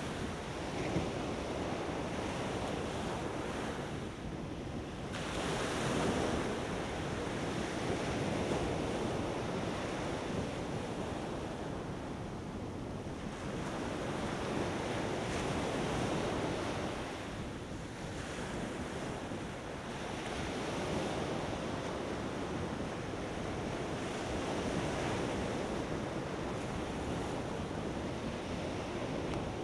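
Ocean surf breaking and washing up a sandy beach, the rush rising and falling every few seconds, with wind on the microphone.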